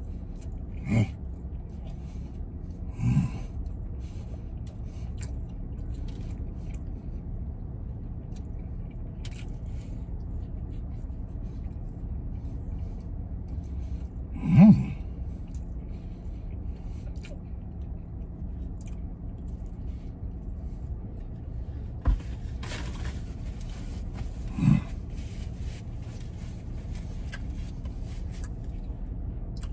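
A man eating a burger, chewing with a few short hummed "mm" sounds, over a steady low hum inside a truck cab. About two-thirds through there is a click, then several seconds of cloth rustling as he wipes his mouth with a towel.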